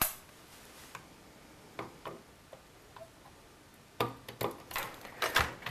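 Small screwdriver clicking and tapping against screws and the metal hard-drive carriage inside an iMac G4 as the carriage screws are worked out. A few isolated clicks come first, then a busier run of taps and rattles in the last second and a half.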